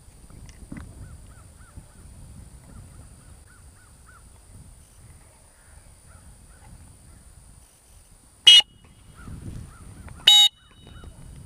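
Two short, sharp, piercing blasts on a dog-training whistle, a couple of seconds apart, the signal to a retriever out on a blind retrieve.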